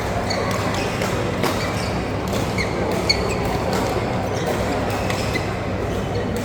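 Badminton doubles rally in an indoor hall: a few sharp racket hits on the shuttlecock, about one and a half and three seconds in, and short shoe squeaks on the court floor over a steady hall hubbub.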